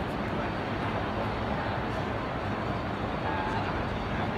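Steady din of a busy exhibition hall: an even wash of crowd and hall noise with faint, indistinct voices now and then.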